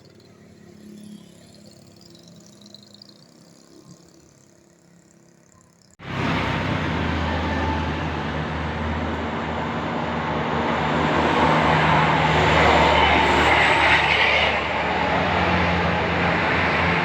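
Faint background noise for the first few seconds, then a sudden cut to a heavy road vehicle passing close: engine and tyre noise with a steady low engine note, growing louder a little past the middle.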